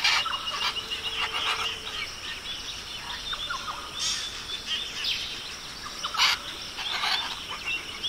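Forest ambience of birds calling: many short chirps and whistles over a steady background hiss, with a few louder brief calls about four, six and seven seconds in.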